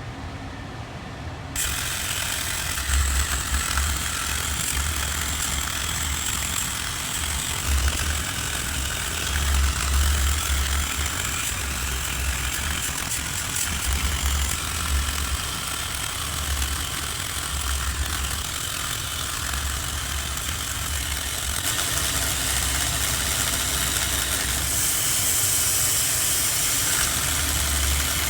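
A machine running steadily with an uneven low rumble. A broad hiss starts abruptly about two seconds in.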